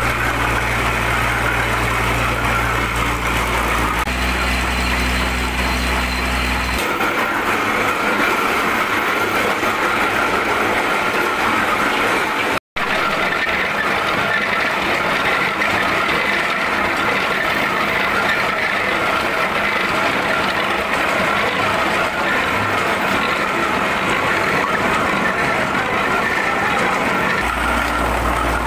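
Heavy machinery running steadily: the motor-driven clay rollers of a wire-cut brick-making machine and a JCB 3DX backhoe loader's diesel engine. A deep steady hum fills the first few seconds, then gives way abruptly to a noisier mechanical din. The deep hum returns just before the end.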